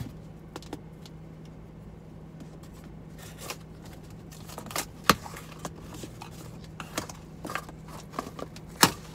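Cardboard shipping box being opened and handled by hand: scattered rustles, scrapes, sharp clicks and snaps, the loudest about five seconds in and again just before the end, over a steady low hum.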